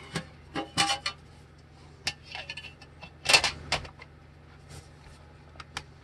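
Laptop's bottom access cover being set in place and pressed down, a scattered series of clicks and knocks as it seats, the loudest about three seconds in.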